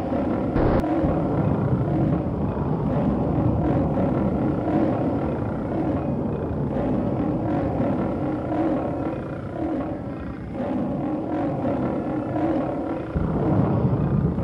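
Monster sound effect: a deep, animal-like roaring and growling that carries on throughout and dips briefly about ten seconds in.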